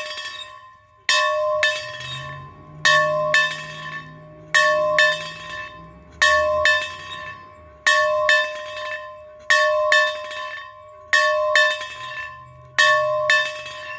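A bell rung steadily, its clapper striking in quick pairs, ding-ding, about every second and a half to two seconds. Each pair rings on and fades before the next.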